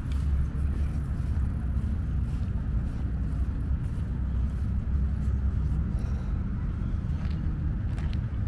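Steady low rumble of wind buffeting the microphone outdoors, with a few faint ticks near the end.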